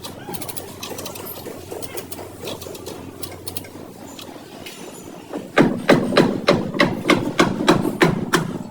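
Hammer blows on car-body sheet metal during dent work: lighter, irregular tapping, then from about halfway through a quick run of loud, sharp strikes, about four a second.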